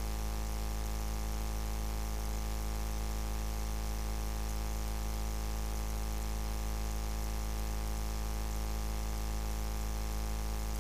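Steady electrical hum and buzz, a low drone with a row of overtones above it, unchanging throughout.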